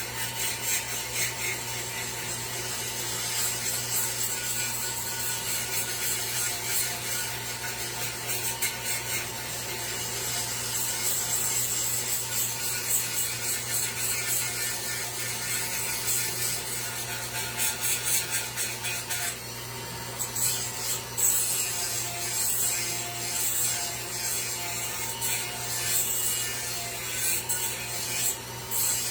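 A hand tool scraping back and forth across wood in quick repeated strokes while a sign is shaped by hand. The strokes become more separate and sharper in the last third. A steady low hum runs underneath.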